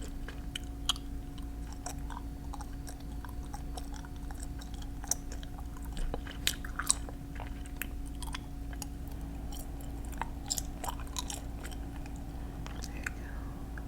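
Close-miked small clicks, taps and light scrapes from handling nail-polish bottles and nail-care tools, scattered irregularly, with a few sharper clicks about five to seven seconds in. A steady low hum runs underneath.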